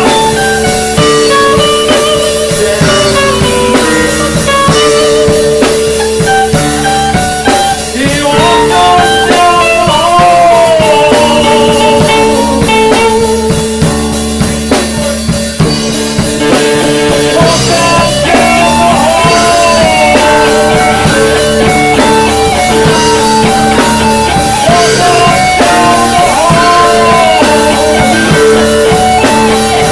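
Blues-tinged rock song playing: drum kit and guitar, with a lead melody moving over held chords.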